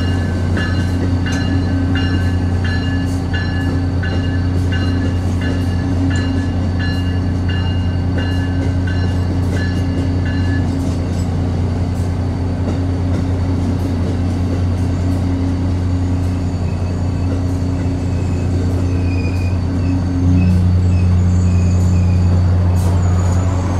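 Amtrak Northeast Regional passenger cars rolling slowly past, with a loud steady low hum. A regular ringing clicking about twice a second lasts for roughly the first ten seconds, and the hum grows louder about twenty seconds in.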